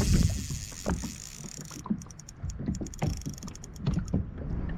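Knocks and thumps of handling in a small plastic boat, with water against the hull. A high hiss cuts off about two seconds in, followed by a run of light, irregular clicks.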